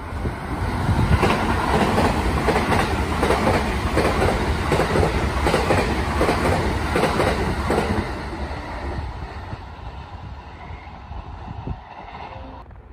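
JR West Thunderbird limited express passing through the station at speed, its wheels clattering in quick succession over the rail joints. The sound builds about a second in, holds, then fades away after about eight seconds as the train draws off.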